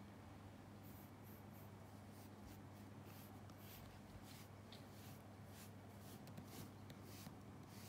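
Faint, quick scratchy strokes of a nekojasuri, a file-like cat grooming brush, rubbing through a long-haired cat's fur. The strokes start about a second in and come about two or three a second.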